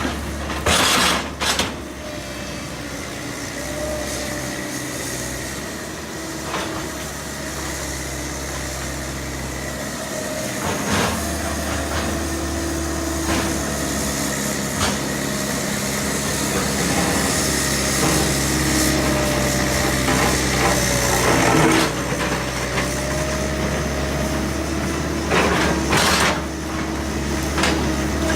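Excavator (track hoe) diesel engine running under load while it works boulders, with a few sharp knocks of bucket and rock scattered through.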